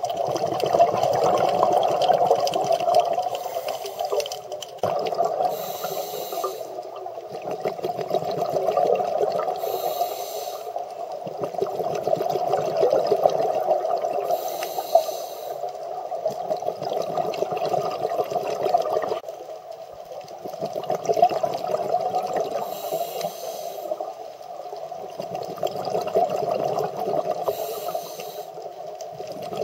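Scuba diver breathing through a regulator, heard from the camera's underwater housing: a short hiss of inhalation every several seconds, and between them the exhaled bubbles gurgling and rumbling in long swells.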